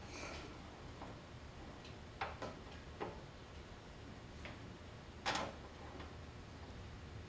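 Hand saw set clicking as it presses alternate teeth of a Disston D8 rip saw over its anvil to set them: a few separate sharp clicks, the loudest about five seconds in.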